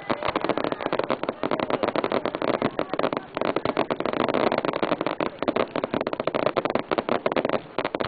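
Fireworks crackling: a dense, continuous rattle of many rapid small bangs from bursting firework stars.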